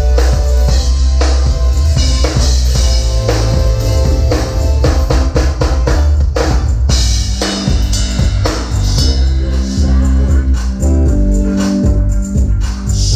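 A band playing at a sound check: a full drum kit with kick, snare and rimshots over a bass line and held instrumental notes.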